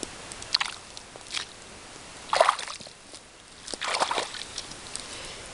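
Shallow water splashing and sloshing in a few short bursts, the loudest about two and a half seconds in and another longer one about a second and a half later.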